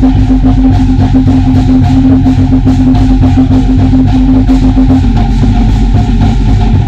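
Loud live drumming in a fast, driving rhythm accompanies a Polynesian dance. A steady held note sounds over the drums and stops about five seconds in.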